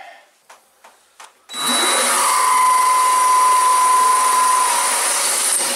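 DeWalt 20V MAX cordless drill turning a water-cooled QEP Brutus 5/16-inch diamond bit into porcelain tile. After a few light clicks, a steady whine with a grinding hiss starts about a second and a half in and runs about four seconds before cutting off suddenly.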